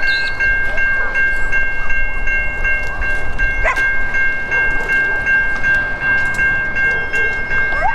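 Level crossing warning bell ringing steadily at about three strokes a second.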